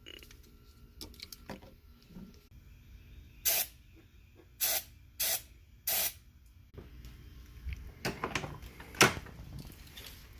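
1970 Corvette's starter solenoid chattering in four short buzzing bursts as the key is turned, too little current to crank the engine: the battery is dead. Several clicks follow, with one sharp click near the end.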